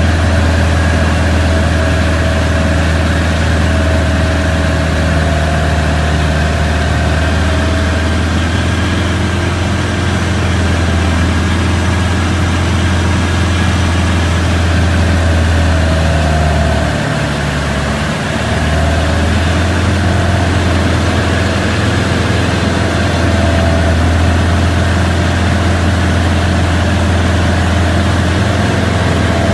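Light aircraft's engine and propeller droning steadily, heard inside the cockpit, dipping briefly a little past halfway.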